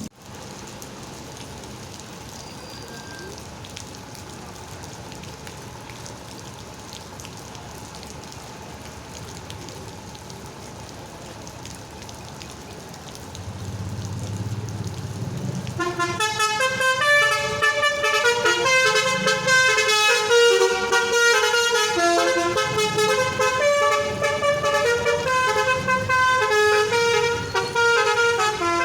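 Basuri V3 telolet bus horn, a multi-trumpet air horn, playing a fast melody of quickly changing notes. It starts about halfway through, after a low engine rumble swells up.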